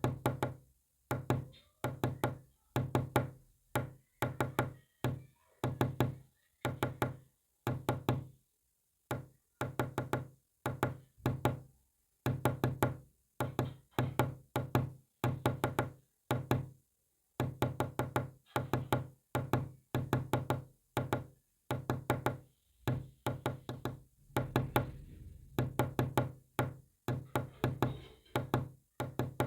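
Morse code sounded as short, low-pitched knocks in rapid groups, with brief silent gaps between the groups.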